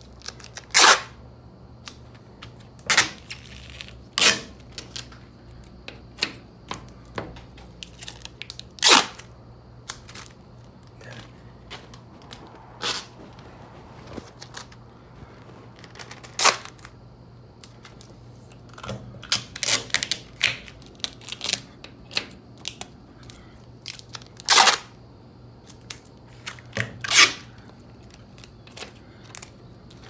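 Handling noise from a phone held against the hand or clothing: irregular sharp clicks, knocks and rustles on its microphone, some loud, over a faint steady low hum.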